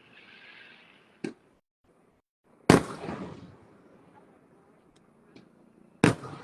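Aerial fireworks shells bursting: a small sharp pop about a second in, then two loud booms about three seconds apart, each trailing off in a rumble.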